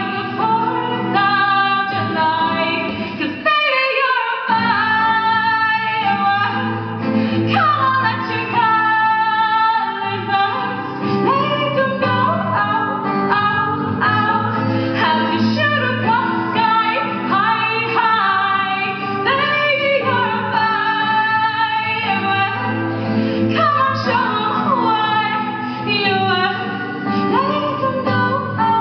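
A woman singing a song to her own acoustic guitar accompaniment, with her voice carrying the melody throughout.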